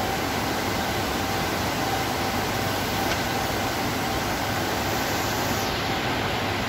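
Steady background hiss and hum in an indoor aquarium, from the running water, aeration and machinery, with a faint steady tone beneath and no distinct events.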